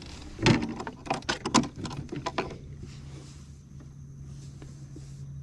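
A quick run of sharp clicks and knocks for about two seconds, then a steady low hum.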